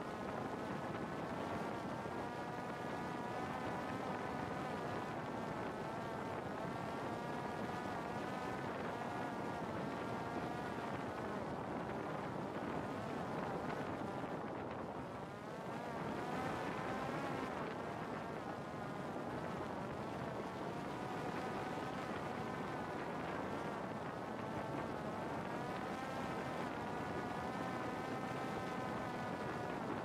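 Parrot Disco fixed-wing drone's electric motor and rear pusher propeller whining in flight over a steady rush of air noise. The pitch wavers slightly, then dips and quietens briefly about halfway through before climbing back.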